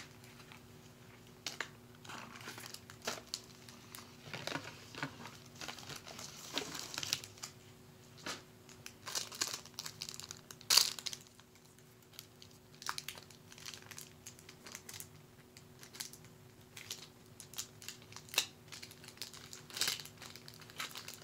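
Plastic wrapper of a Bakugan trading-card pack crinkling and tearing as it is opened by hand, in irregular rustles and clicks, with one sharper crackle about eleven seconds in. A faint steady hum runs underneath.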